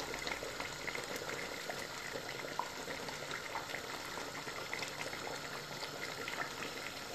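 Pot of chicken in tomato sauce bubbling steadily at the boil, with many small pops.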